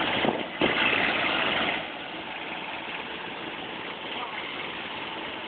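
Steady noise of road traffic and a running vehicle engine, louder for the first couple of seconds, with faint voices mixed in.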